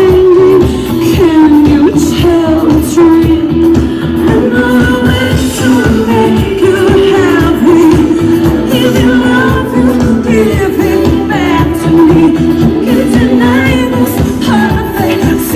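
Live pop music played loud through a concert sound system: a female lead singer over a band with a steady beat.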